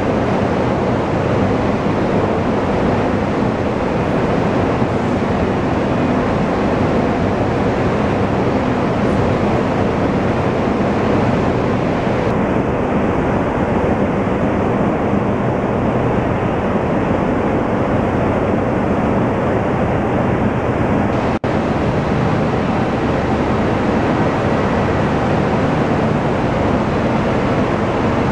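Loud, steady rushing noise of sand pouring from an overhead conveyor onto a stockpile, over a low machinery hum. It cuts out for an instant about three-quarters of the way through.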